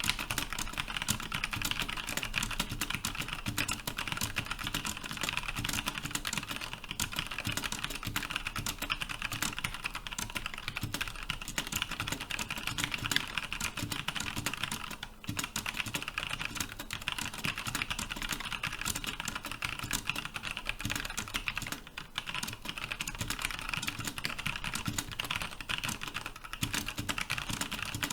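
Fast, continuous touch-typing on a mechanical keyboard with Cherry MX Brown switches and PBT keycaps: a dense, steady clatter of keystrokes at about 80 words per minute, with brief pauses twice.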